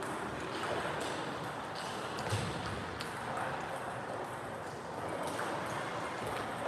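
Table tennis rally: the plastic ball clicking sharply off the bats and the table at irregular intervals, the loudest knock a little past two seconds in, over the steady background noise of a large sports hall.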